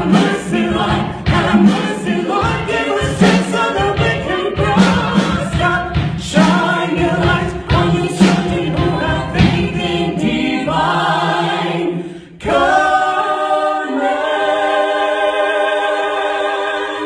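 Choir singing a musical-theatre number over a rhythmic accompaniment, then, about two-thirds of the way in, holding one long sustained chord.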